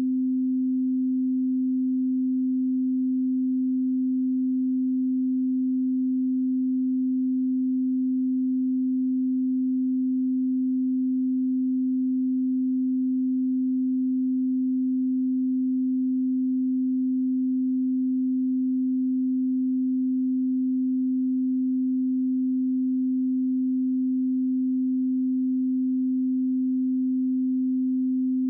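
A 258 Hz pure sine-wave test tone, held steady at one pitch and level with no harmonics.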